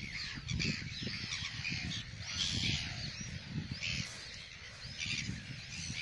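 Colony of gulls calling, many harsh overlapping calls with louder bunches every second or so, over a low rumble.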